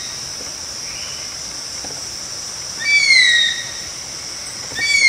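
Bird giving two whistled calls, each under a second, rising briefly and then sliding down in pitch: one about three seconds in, the other near the end. A steady high insect buzz runs underneath.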